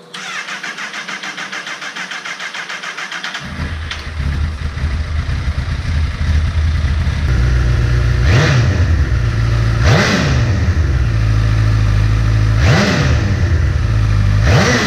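2014 Honda CBR1000RR Fireblade's inline four-cylinder engine, breathing through an SC Project aftermarket exhaust and mid-pipe: the starter cranks it with a rapid, even pulsing for about three and a half seconds before it catches. It settles into a loud, steady idle, and the throttle is blipped four times, each rev rising and dropping back quickly.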